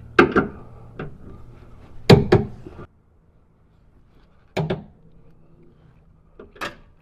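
Tools and metal parts knocking and clanking in a string of separate sharp hits, about seven in all, over a low hum that stops about three seconds in.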